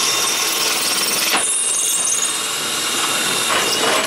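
Power drill boring a nail hole through a roofing slate, running steadily under load and stopping abruptly at the very end.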